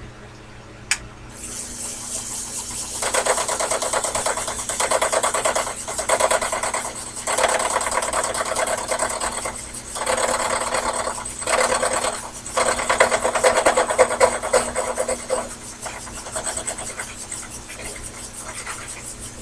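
Sherline mini lathe running, its cutting tool scraping on a workpiece turned between centers as the stock is brought to round. Over the steady motor hum, the cutting noise comes in four long stretches with short breaks, then drops back near the end.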